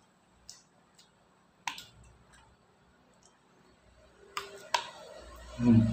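A few light clicks and taps from handling a plastic chili-sauce bottle over a bowl, with two sharper clicks about four and a half seconds in. A voice begins near the end.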